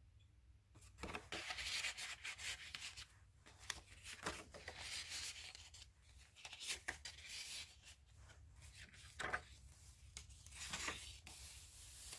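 Soft rustling and rubbing of paper and card as the journal's inserted cards are shifted and its pages turned, in several short bouts with a few light taps.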